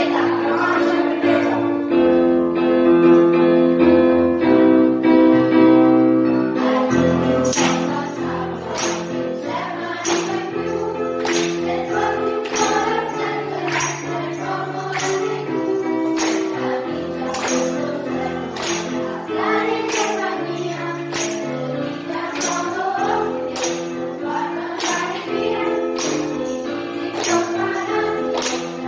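A group of children singing together, holding long notes at first. About a quarter of the way in, tambourines and hand claps join on a steady beat.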